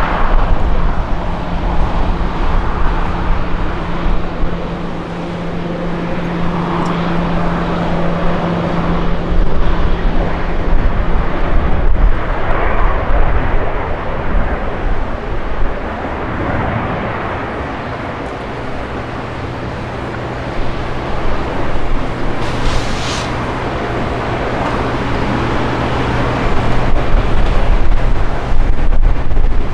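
Jet engines of a twin-engine airliner just after touchdown, running loud as it rolls out and slows on the runway. A low steady hum under the engine noise drops in pitch about twelve seconds in. The noise eases in the middle and swells again near the end.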